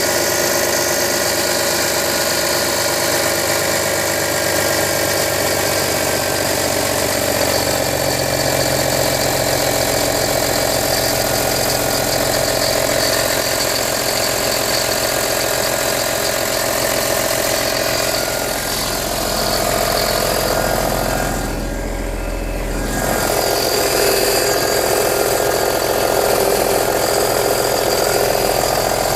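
Audi A4 B6 2.5 TDI V6 diesel engine running after a cold start, making the strange noise the owner is showing. The sound thins briefly about twenty-one seconds in, then comes back.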